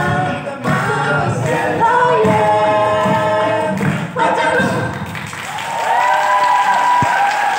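A group of voices singing, ending on a long held note near the end.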